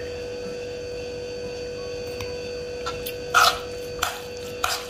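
A steady hum, then about three seconds in, a metal spoon scrapes and stirs a thick fava-bean mash in a metal bowl, three short strokes.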